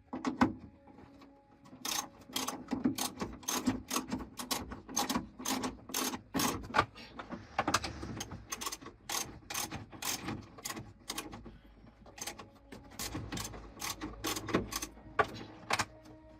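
Hand tools working on an engine: a long run of sharp, irregular metallic clicks and knocks, about two or three a second.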